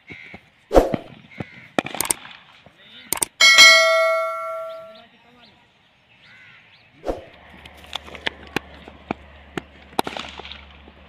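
Subscribe-button overlay sound effect: a few sharp mouse-style clicks, then a bell ding that rings out and fades over about a second and a half. Scattered short clicks and knocks follow near the end.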